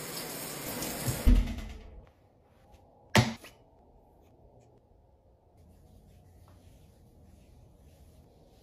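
Shower water running as a steady rush, with a low thump about a second in; it cuts off about two seconds in. A single sharp click follows, then faint room tone.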